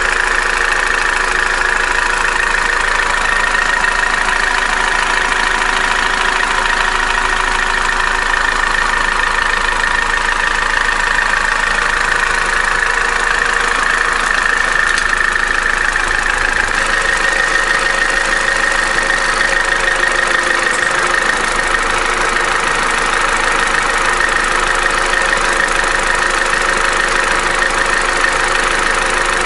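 Opel A14XER 1.4-litre four-cylinder petrol engine idling steadily with a knocking noise, the noise it is known to make during warm-up. The mechanic suspects insufficient oil pressure rather than the Twinport flaps.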